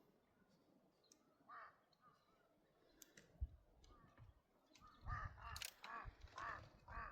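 Faint animal calls: one short call about a second and a half in, then a quick run of about five short calls near the end, with a soft knock in between.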